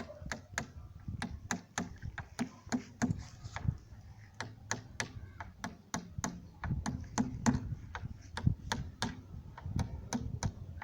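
Hammer driving a nail into a plastic jerrycan to punch small holes: quick, sharp taps at about two to three a second.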